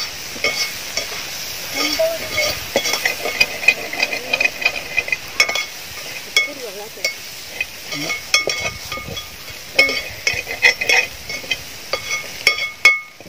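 Wire-mesh skimmer stirring a frying onion-tomato masala in a stainless steel pot, with repeated metal clinks and scrapes against the pot over a steady sizzle. One louder clink comes near the end.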